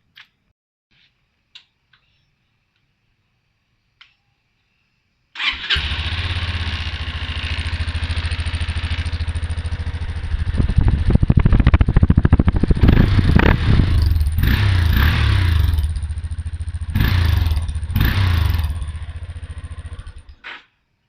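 Yamaha Fazer motorcycle engine starting about five seconds in and running with a fast, even pulse, revved up twice, then switched off shortly before the end. Its exhaust has a hole freshly plugged with a washer.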